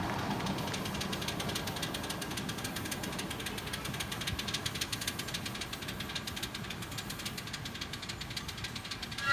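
A 7¼-inch gauge miniature Bagnall steam locomotive and its loaded passenger cars running on the track, with a quick, even beat of clicks. It fades slowly as the train moves away.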